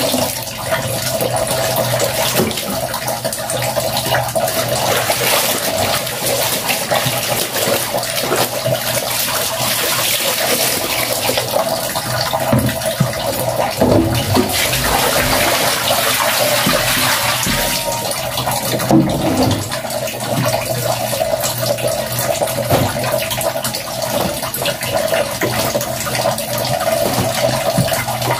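Water running steadily from a tap into a plastic basin of soapy laundry, splashing as the clothes are rinsed by hand.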